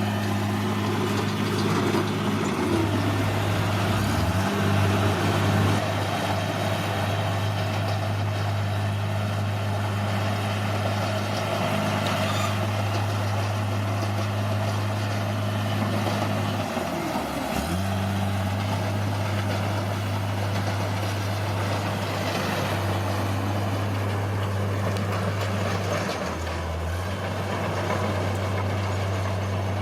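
Heavy diesel engine of an earthmoving machine running under steady load, its note dipping and recovering briefly three times: about four seconds in, just past halfway, and near the end.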